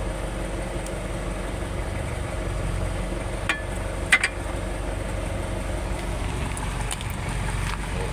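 Steady low hum like an idling engine, with two sharp metallic clinks midway, the second the louder, as of brake parts or tools knocking together.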